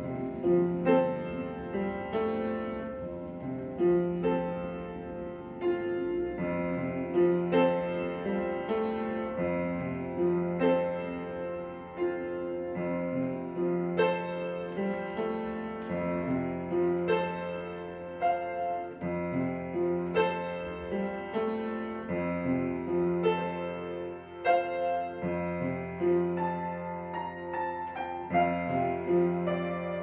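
Solo upright piano: a steady stream of notes over lower bass notes that change every couple of seconds.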